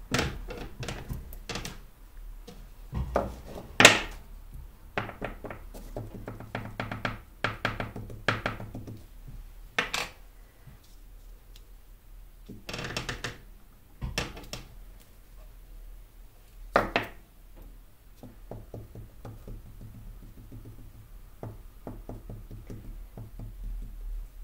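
Wooden-block rubber stamps set down and pressed onto paper on a table, giving scattered thunks and knocks, the sharpest about four seconds in and again near seventeen seconds, amid paper rustling and small clicks from handling ink pads.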